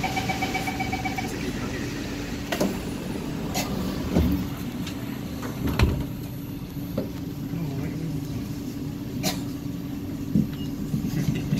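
Door-closing warning beeps for about a second, then several knocks and thuds as the doors of a C751B MRT train and the platform screen doors shut. A steady low hum from the standing train runs underneath.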